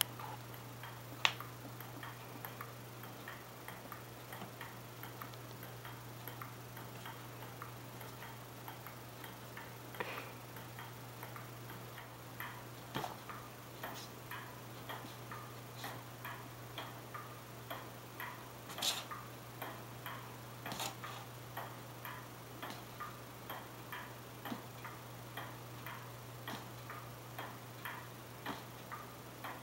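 Regular ticking, about one and a half ticks a second with a few louder clicks among them, from the soundtrack of a cat-entertainment DVD playing on a television.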